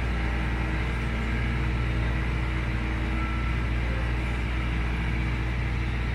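Compact tractor engine running steadily with a low, even hum as the tractor pulls a rear implement across bare soil.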